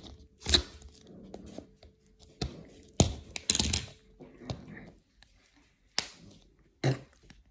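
Plastic toy container being handled and pried at to open it: scattered sharp plastic clicks and knocks, with a short crinkly rustle about three and a half seconds in.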